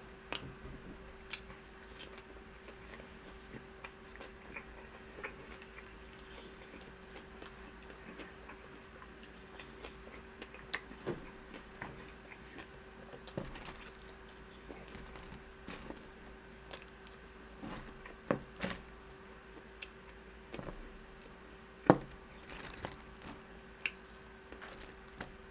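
A person chewing and biting crunchy, burnt food, with scattered sharp crunches, a few louder ones near the end. A faint steady hum lies underneath.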